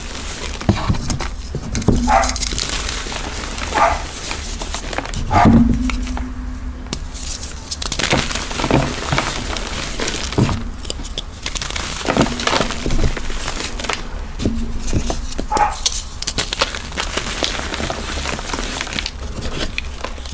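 Dyed gym chalk being crushed and crumbled: a dense run of crisp crunches and crackles, broken by a few short squeaky pitched sounds.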